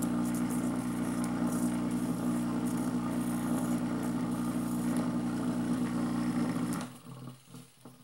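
A 180 W, 127 V washing-machine capacitor motor running at speed with a steady electrical hum, switched off about seven seconds in so that the hum cuts off quickly. A few soft knocks follow.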